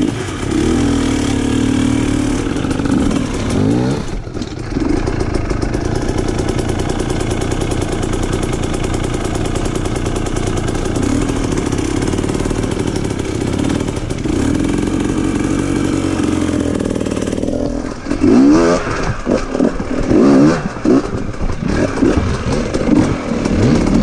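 Dirt bike engine pulling steadily at low revs under load on a rocky trail climb, with a short drop about four seconds in. From about eighteen seconds it revs up and down in quick throttle blips as the bike works over rocks.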